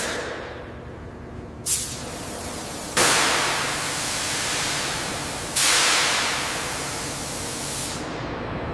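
Bursts of loud hissing noise: a short one nearly two seconds in, then two longer ones starting about three and five and a half seconds in, each switching on suddenly and fading away over a couple of seconds.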